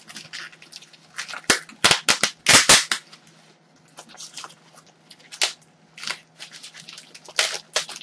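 Plastic packaging being handled and torn open: a burst of sharp crackles and snaps about two seconds in, then quieter rustles and a few more crackles.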